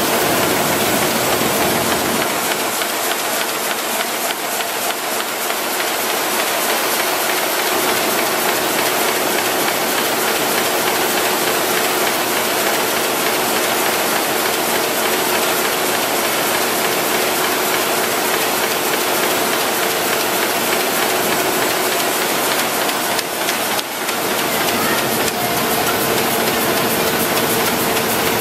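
RYOBI 758P eight-colour sheetfed offset press running: a loud, steady mechanical noise with a faint steady hum.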